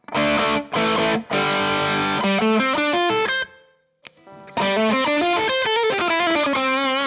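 Electric guitar played through a Way Huge Red Llama overdrive into the distorted channel of a Fender Supersonic amp, with a thick, fattened drive. It starts with a few chord stabs and a run of single notes, then after a brief pause plays a lead phrase ending on notes held with vibrato.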